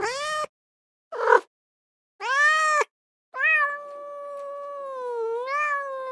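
A domestic cat meowing four times. Two short rough meows come first, then a clear meow that rises and falls. About three seconds in, a long drawn-out meow begins, wavering up and down in pitch for about four seconds.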